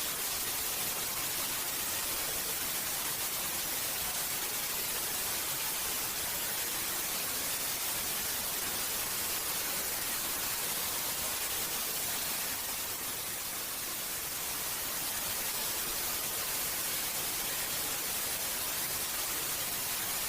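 Steady white noise: an even, hissing static, strongest in the treble, dipping slightly in loudness about thirteen seconds in.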